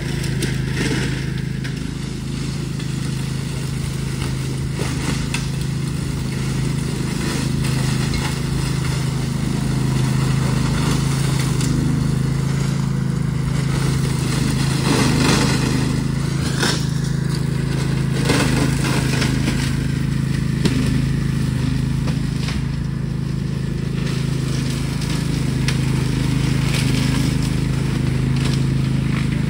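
Rabbit Mower RM983X ride-on brush mower running under load, its engine holding a steady note while the cutting deck chops through undergrowth and branches with irregular crackling and snapping, thickest around the middle.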